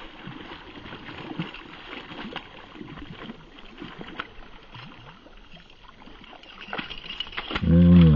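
A hooked bass thrashing and splashing at the surface close to the boat, in irregular watery splashes. In the last half second a man's voice rises into a loud, drawn-out exclamation.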